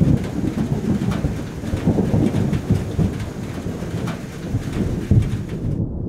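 Thunder rumbling low and rolling, with rain falling. The higher hiss of the rain cuts off suddenly near the end.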